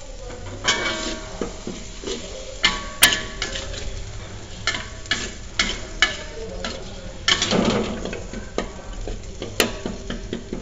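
Spatula stirring thick chilli sauce in a metal wok, scraping and knocking against the pan in irregular strokes, with the longest scrape about seven seconds in. A low sizzle of the sauce cooking runs underneath.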